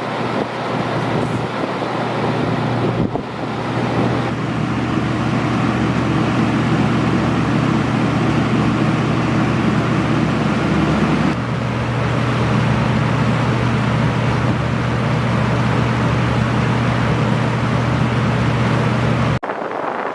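Early-1980s Torcan 50 cm five-blade box fan running, a loud steady rush of air over a low motor hum. The sound shifts abruptly about 3 and 11 seconds in and cuts off just before the end.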